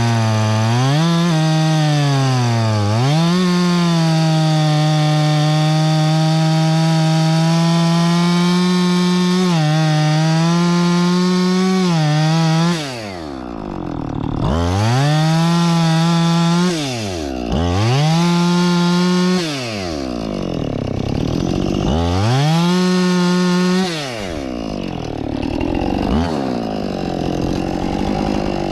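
Husqvarna 576XP two-stroke chainsaw cutting at full throttle into a poplar trunk, its revs sagging briefly a couple of times under the load. About halfway through it drops off throttle, is revved up again three times in short bursts, then settles to a lower, quieter run near the end.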